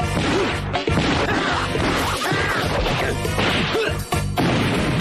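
Punch impacts in a cartoon fight: several hard hits and smashes over loud dramatic background music.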